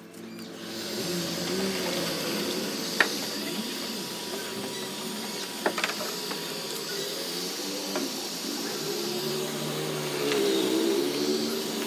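A steady blowing hiss from a workshop machine, with a wavering hum underneath. There are sharp taps about three seconds in and again near six seconds.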